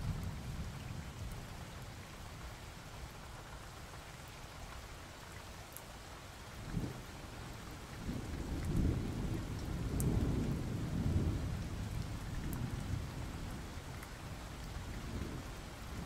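Steady rain with rolling thunder: a low rumble swells about seven seconds in and again from about eight to eleven seconds.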